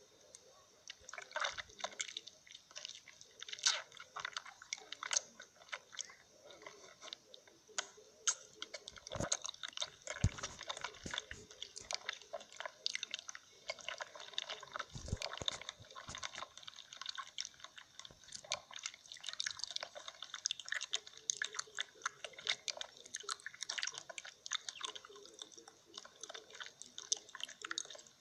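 Close-miked eating sounds: a steady run of biting, crunching and wet chewing clicks, with a few heavier bites partway through.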